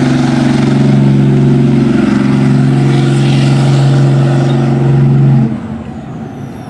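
Heavy vehicle engine sound, a loud steady drone that starts abruptly and cuts off about five and a half seconds in.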